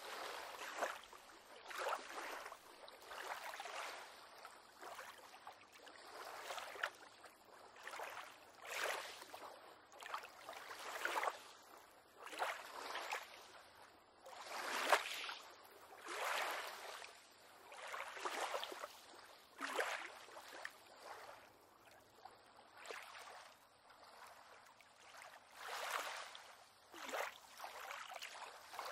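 Small waves lapping and sloshing against a pier on calm water, a soft slosh every second or two.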